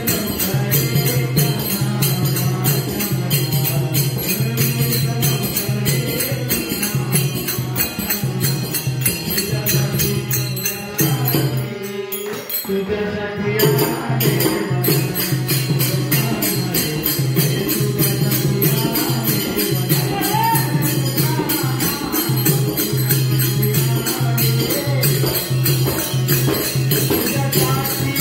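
Folk devotional music of a Marathi gavalan: a harmonium holding a steady low drone and melody, with a dholki drum and small hand cymbals jingling in an even, quick beat.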